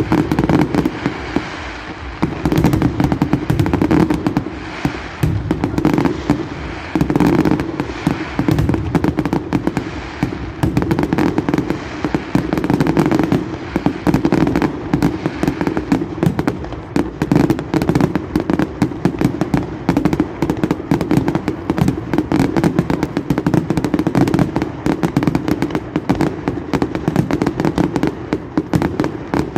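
Fireworks going off in a dense, unbroken barrage of bangs and crackling, with no pauses.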